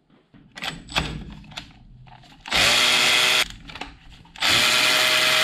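Electric 3/8-inch ratchet with a Torx bit running in two bursts of about a second each, spinning up quickly and then holding speed, as it loosens the rear brake caliper bolts. A few sharp clicks come before it, from the bit being set on the bolt.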